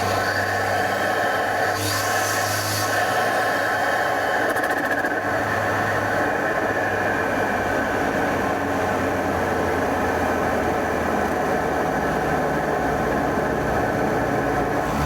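BMW N20 2.0-litre turbocharged four-cylinder engine running steadily under way, its sound carried through an open aftermarket intake, with a brief high hiss about two seconds in.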